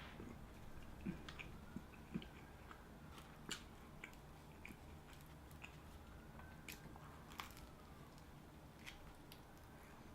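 Faint chewing of a sub sandwich, with soft wet mouth clicks and smacks scattered throughout.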